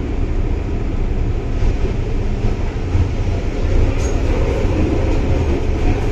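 MTR Island Line M-Train (Metro-Cammell electric multiple unit) running, heard from inside the passenger car: a loud, steady rumble of wheels on rail and traction equipment, with a faint tick about four seconds in.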